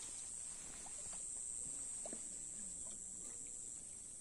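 Steady high-pitched insect drone, unbroken throughout, with faint distant voices underneath.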